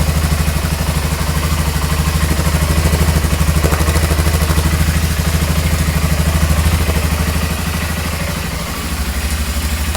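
2001 BMW F650GS Dakar's single-cylinder, dry-sump engine idling steadily with an even, regular pulse. It is running at idle after a fresh oil change, with the idle oil pressure pushing the new oil through.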